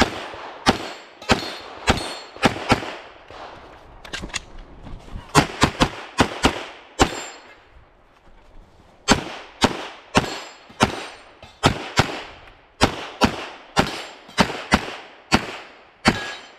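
Carry Optics competition pistol fired rapidly, some two dozen sharp shots in quick strings at about two a second, with a pause of about a second and a half near the middle.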